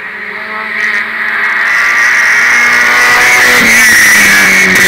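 Small hatchback race car at full throttle, its engine note growing louder as it approaches and passes close by, dropping slightly in pitch as it goes past. Tyre spray hisses off the wet tarmac.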